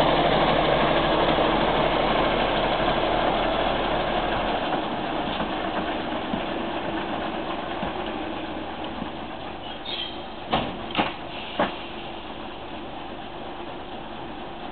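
Mk48 narrow-gauge diesel locomotive's engine running and fading steadily as the locomotive moves away. About two-thirds of the way through come a brief high squeal and then three sharp knocks about half a second apart.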